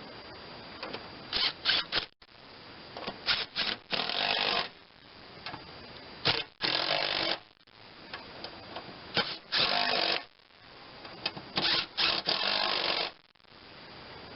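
Power drill/driver run in short trigger bursts, five clusters of about a second each with quick blips between, running down the bolts that hold the rebuilt mower-deck spindles.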